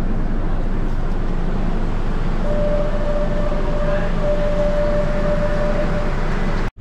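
Barcelona Metro Line 2 train heard from inside the car: steady running rumble and rail noise as it comes into a station. About two and a half seconds in, a steady high whine starts and holds for about three and a half seconds, briefly broken once.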